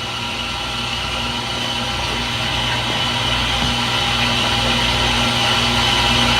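Front-loading washing machine in its spin cycle: a steady mechanical whine and hum growing steadily louder, with a low hum pulsing on and off about twice a second.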